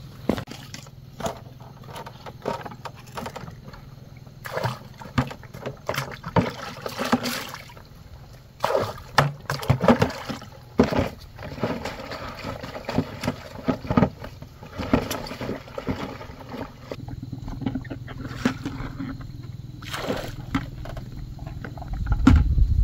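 Lake water splashing and sloshing as a plastic bucket is dipped and worked in the shallows, with scattered knocks and clicks. A low rumble rises near the end.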